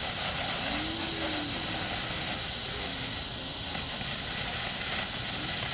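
Ground fountain firework burning, spraying sparks with a steady, even hiss and no bangs.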